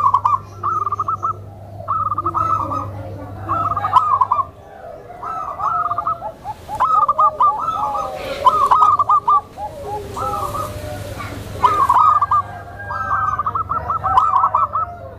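Zebra doves (perkutut) cooing: short rolling, trilled coo phrases repeated about once a second, several overlapping at times. A steady low hum runs underneath.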